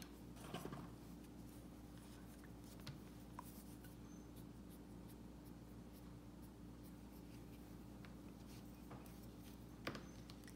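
Near silence: faint rubbing and a few light taps of a small painting tool on a porcelain tile, over a steady low hum.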